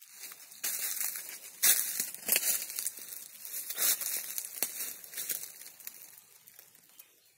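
Crinkly rustling and crackling in irregular strokes, loudest in the first four seconds and dying away near the end.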